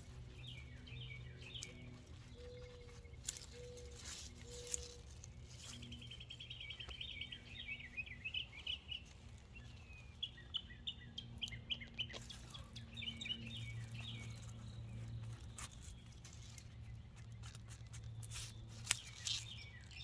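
Small songbirds chirping and trilling repeatedly, with scattered soft clicks and rustles and a faint steady low hum underneath.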